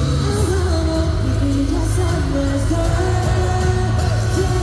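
Live pop music in an arena: a male voice sings a melody over a loud backing track with heavy bass, played through the venue's sound system.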